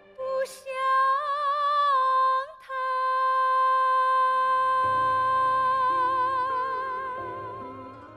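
A woman singing solo with vibrato: a short phrase, a quick breath, then one long held note that fades near the end. Soft low instrumental accompaniment comes in under the held note about halfway through.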